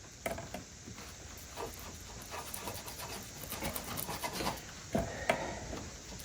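A glue brush scrubbing and dabbing hot hide glue onto a wooden panel in quick, irregular strokes. A couple of sharper knocks come just after the start and about five seconds in.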